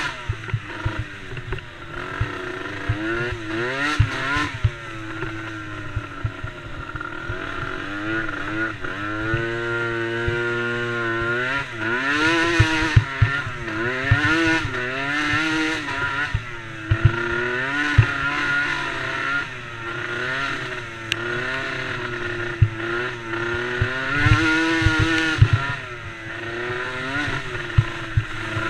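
Small DRR DRX90 youth racing ATV engine revving hard up and down over and over, its pitch rising and falling every second or two, with scattered short knocks.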